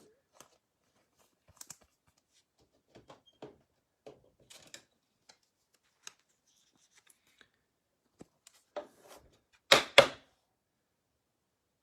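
Baseball trading cards being handled and shuffled by hand: scattered light clicks and taps, then two loud, short noises close together near the end.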